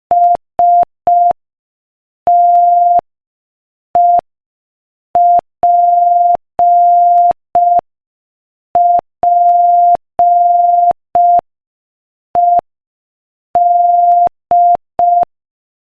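Morse code sent as a single steady beep tone at 5 words per minute: short dits and long dahs grouped into letters, with silent gaps between them.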